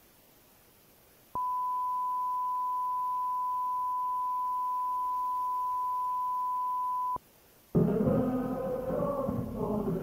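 Broadcast test tone: a single steady beep that sounds with colour bars when a TV signal is interrupted or the station is off air. It starts about a second in and stops after about six seconds. Shortly after it stops, music with chanting voices begins.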